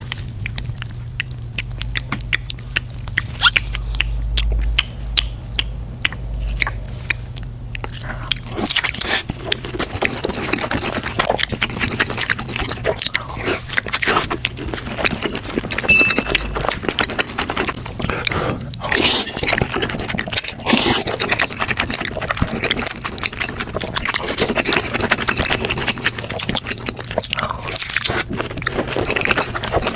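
Close-miked ASMR eating sounds: crunching and chewing with many sharp crackly clicks, sparse for the first several seconds, then denser and continuous.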